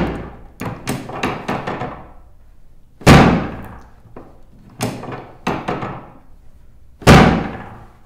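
Chiropractic drop table: the drop section slams down under the adjusting thrust twice, about four seconds apart, each a loud clack that rings briefly, with lighter clicks and knocks between.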